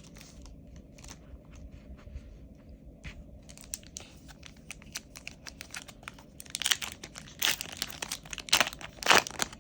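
Foil Yu-Gi-Oh booster pack wrapper crinkling as it is handled and torn open, the crackling growing louder and busier in the last few seconds.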